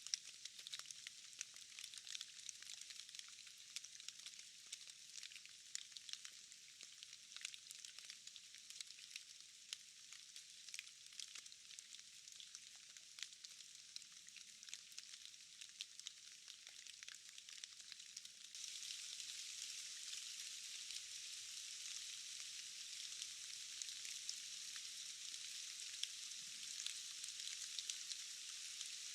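Rain falling: a steady hiss of fine drops with many scattered ticks of single drops. About two-thirds of the way through it switches abruptly to a louder, denser patch of rain.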